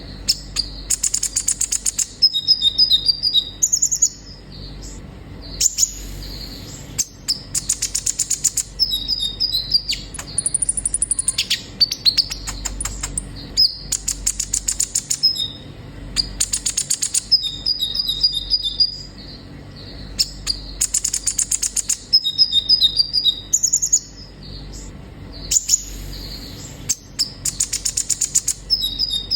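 Kolibri ninja sunbird singing. High, thin phrases of fast buzzy trills alternate with short clear whistled notes, over and over every few seconds.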